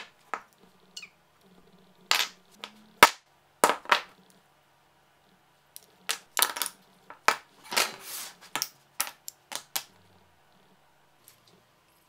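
Cut plywood parts being set down and handled on a wooden workbench: a series of sharp wooden clacks and knocks, a few at first, then a busier run of them in the second half with a short scrape among them.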